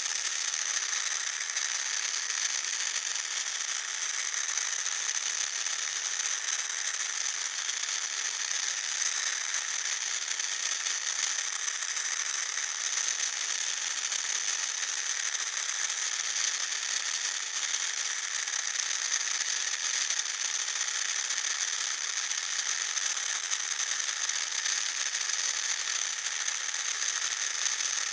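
Electric motor running steadily, a high-pitched whine over a fast, fine mechanical rattle.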